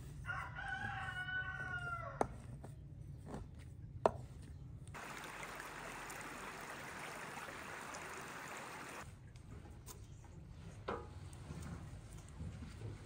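A rooster crowing once: a single drawn-out call of about two seconds that sags in pitch at the end. It is followed by a few sharp knocks and then a steady hiss lasting about four seconds.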